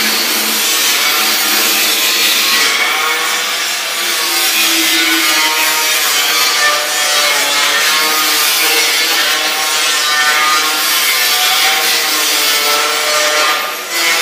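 Angle grinder working stainless steel: a steady, loud grinding hiss with shifting squealing tones, cut off at the very end.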